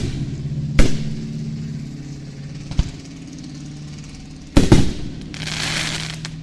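Aerial fireworks shells bursting: a sharp bang about a second in, a smaller pop near three seconds, and a double bang near five seconds followed by about a second of crackling hiss.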